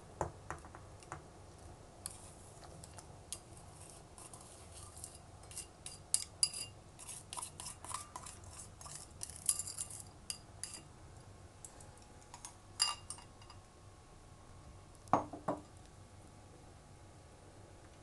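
Bamboo chopsticks clinking and scraping against a ceramic bowl as banana slices are pushed off into the pot: a rapid run of small, bright clinks, followed later by a few louder knocks of dishware.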